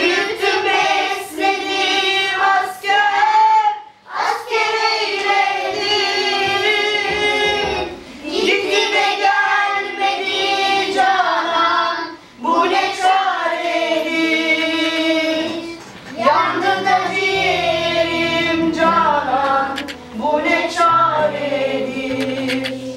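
A child's voice singing a slow, mournful song in long held phrases of about four seconds, with short breaths between them. Low backing notes join in about two-thirds of the way through.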